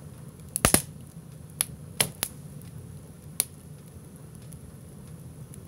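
Split firewood burning in a wood stove with its door open, crackling: a quick cluster of loud sharp pops just under a second in, then a few single pops over the next few seconds.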